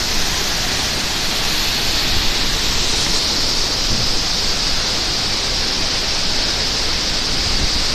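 Waterfall rushing, a loud, steady roar of falling water without a break.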